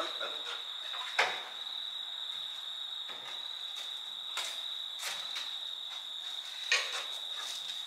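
A cricket trilling steadily on one high note, with a few sharp metallic knocks from work on the truck, the loudest about a second in and another near the end.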